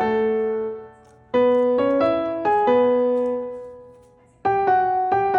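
Background piano music: short phrases of plucky, struck notes that ring out and fade, with two brief pauses between phrases.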